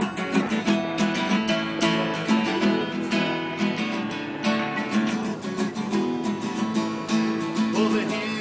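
Acoustic guitar strummed steadily in a repeating chord pattern.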